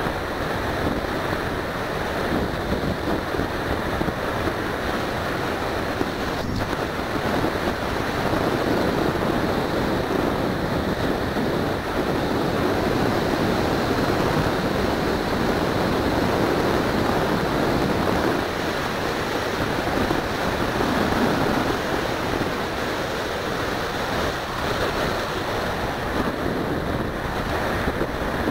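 Steady rushing wind noise from airflow over the microphone of a keychain camera riding on a flying RC plane, with one brief click about six seconds in.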